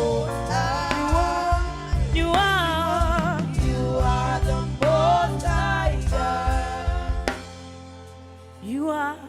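Gospel praise music: a voice singing a bending melody over a drum kit and bass. About seven seconds in, the drums and bass drop out, leaving a softer held chord, and a voice comes in again near the end.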